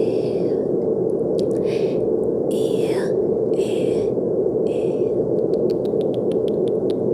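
Steady brown noise, a dull, even low rush. Several short breathy hisses lie over it, and near the end comes a quick run of light clicks.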